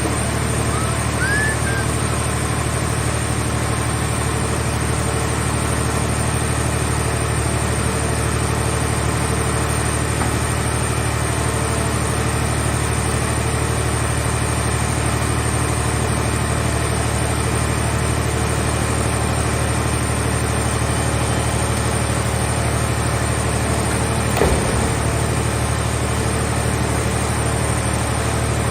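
Hydraulic scrap car-shell baler's power unit running with a steady low hum, with one brief knock near the end.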